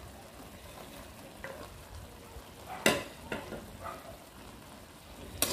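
Pork and vegetables cooking in a wok with a steady hiss as broccoli is tipped in. There is a sharp knock about three seconds in, a few lighter taps after it, and another knock near the end, from the plate or utensil striking the wok.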